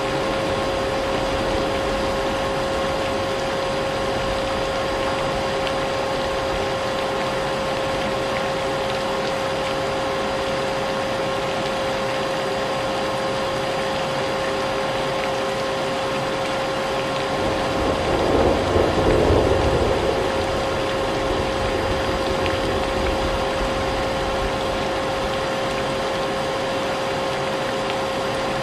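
Vacuum cleaner running steadily, its motor giving a constant whine over a broad hiss, mixed with the sound of rain. About 18 seconds in, a low rumble swells for about two seconds, then fades.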